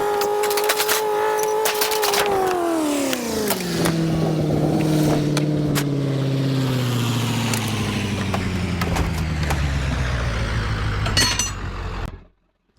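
Vehicle engine running at a steady pitch, then dropping sharply in pitch after about two seconds and winding down slowly as the vehicle slows, with sharp rattling clicks over the first few seconds. The sound cuts off abruptly near the end.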